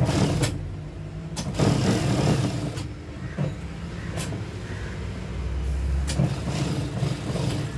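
Juki industrial sewing machine running in a few short stitching bursts under a steady motor hum, with fabric handled between the runs.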